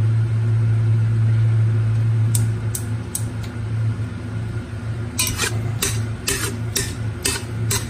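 Oil sizzling in a pan, with a utensil clinking and scraping against the pan in quick repeated strokes from about five seconds in. A steady low hum runs underneath.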